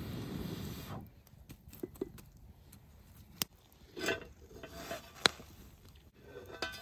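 Metal lidded cast iron pan clinking and scraping on the fire-ring stones as it is set beside the coals. It opens with a second-long rustle of wood being shifted in the fire, and a few sharp clicks are scattered through it.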